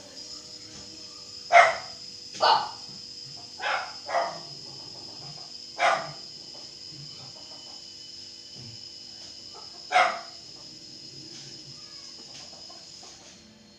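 A dog barking in single short barks, six in all, mostly in the first half and once more about ten seconds in, over a steady high whine that stops shortly before the end.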